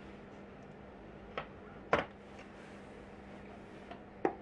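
A few short sharp clicks and knocks from a walnut-and-oak box with brass hardware as it is shut and latched: a loud knock about two seconds in as the drawer goes home, and a sharp click near the end as the brass latch is swung over.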